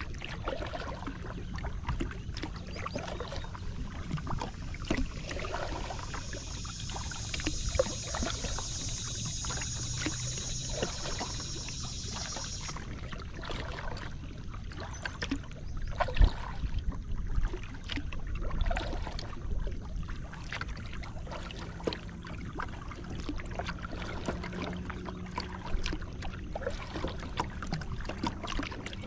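Water lapping and trickling against the hull of a Moken 12.5 kayak moving through calm water, with scattered knocks, the loudest about halfway through. A high, steady buzz joins about six seconds in and cuts off suddenly a few seconds later.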